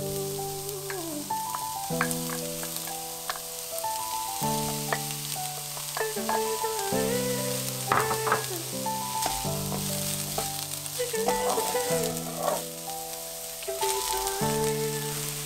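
Diced onion frying in an oiled pan, sizzling steadily while it is stirred with a wooden spatula. Brown mince is tipped in, and eggplant slices go in near the end.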